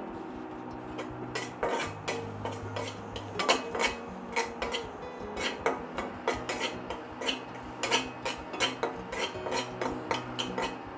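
Metal spatula scraping and clinking against an aluminium wok while stirring chopped garlic in melted butter and flour. The strokes are repeated and uneven and start about a second in.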